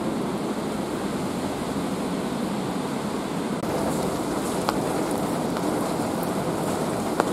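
Steady hiss of rain falling in a city, with a couple of sharp single drip ticks, one about halfway through and one near the end.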